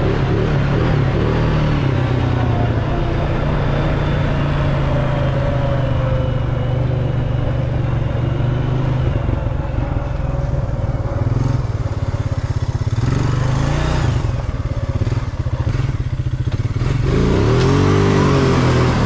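Vehicle engine running steadily at low revs, revved up and back down near the end.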